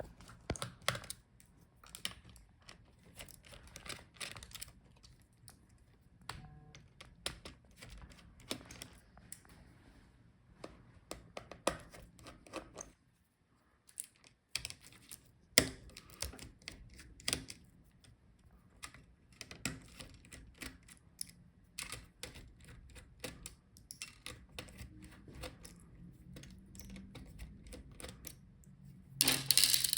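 Scattered small clicks and taps of a screwdriver and small screws as the screws are taken out of a laptop motherboard, with a louder cluster of clicks near the end.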